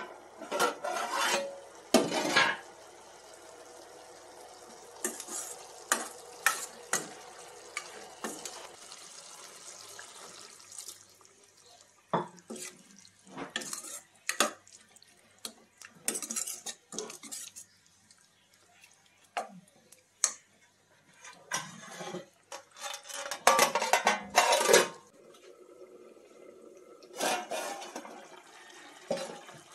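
Steel spoon stirring and scraping cauliflower curry in a stainless steel kadai, in scattered bursts of clinks and scrapes. A metal lid clanks against the pan as it is lifted off near the start and set back on near the end.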